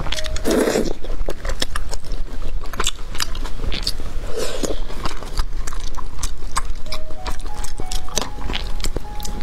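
Close-miked eating of braised pork trotter: wet chewing, lip smacks and sucking, with a loud slurp about half a second in and another around four and a half seconds. Faint background music with held notes comes in during the second half.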